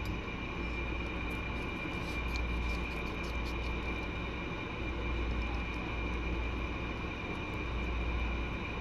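Steady low hum and hiss with a thin high whine, the background noise of a phone recording; faint crisp clicks between about one and a half and three and a half seconds in, from guinea pigs chewing raw vegetables.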